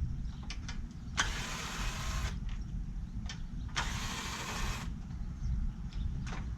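Socket ratchet wrench spun quickly on 8mm bolts: two rapid rasping runs of about a second each, with a few light metal clicks between them.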